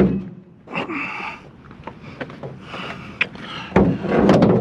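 A metal car hood being shifted and dragged into place on a load of scrap: a knock at the start, a short scrape about a second in, then a louder stretch of scraping and rattling near the end.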